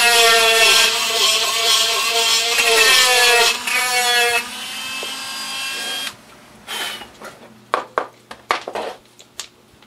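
Handheld rotary tool running at high speed and grinding into wood, its whine dipping in pitch as the bit bites, enlarging a hole in the sign base so a part will fit. The motor shuts off about halfway through and winds down, followed by light clicks and taps as parts are handled.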